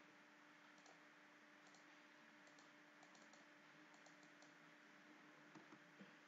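Near silence: a few faint, scattered clicks of a computer mouse and keyboard over a faint steady hum.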